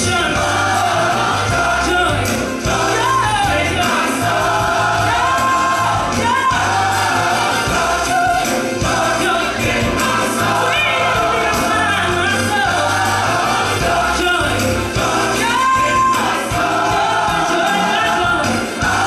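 Gospel song with singing voices over a steady bass beat.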